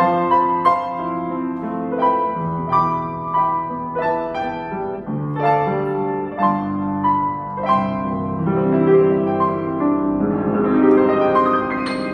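Wagner W.2 upright piano being played: a melody over held chords and bass notes, each note struck and left to ring.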